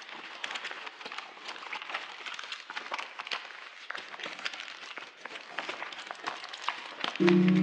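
Crowd ambience: a dense, irregular patter of small clicks and taps with faint voices. Music with a held chord comes in near the end.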